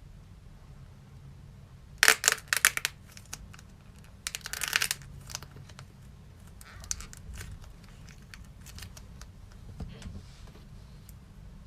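Fidget toys being handled: a quick cluster of sharp clicks about two seconds in, a crinkly rustle near the five-second mark, then scattered lighter clicks and rustles.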